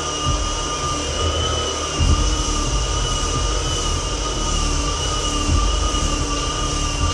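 Hardwood floor edger running steadily while sanding along the edge of the floor, its motor giving a steady high whine over the grinding of the sanding disc, with a brief swell in load about two seconds in.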